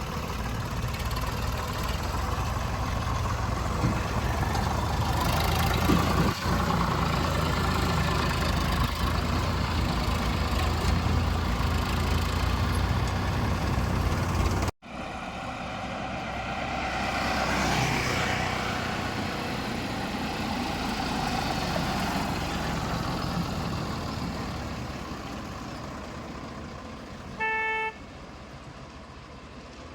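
Diesel machinery engine running steadily until an abrupt cut about halfway. After it, road noise with a vehicle passing by, rising and falling, and a short horn toot near the end.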